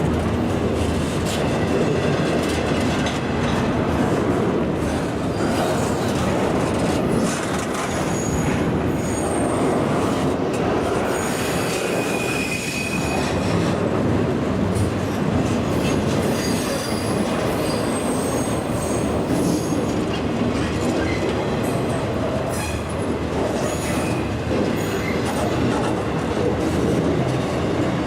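A CSX freight train rolling steadily past on jointed track, with brief high-pitched wheel squeals coming and going, the clearest about halfway through.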